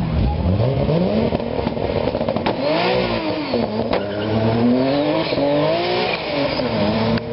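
A sports car engine revving up and down several times, its pitch climbing and dropping in repeated swoops.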